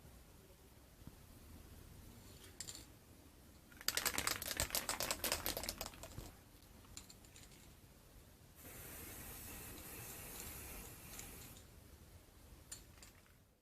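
A rapid run of clicks or rattles lasting about two seconds, followed a couple of seconds later by a steady hiss of about three seconds.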